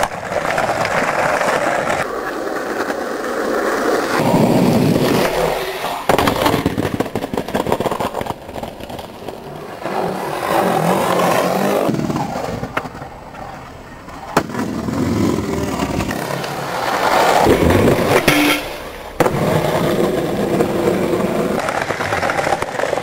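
Skateboard wheels rolling on concrete ramps and bowl walls, with a few sharp clacks of the board popping or landing. The sound breaks off and changes abruptly several times.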